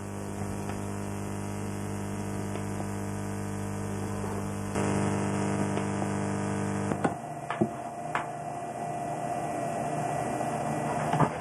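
Steady electrical mains hum and hiss from an old videotape soundtrack played through a television. About seven seconds in the hum changes, a steady whine sets in and a few sharp clicks follow, where the tape runs blank between recordings.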